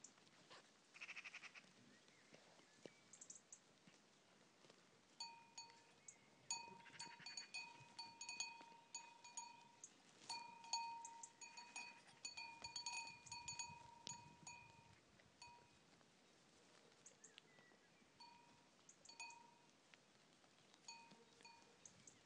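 A goat bell ringing in quick irregular clanks as Boer goats move about while grazing, mostly from about five to fifteen seconds in and again near the end.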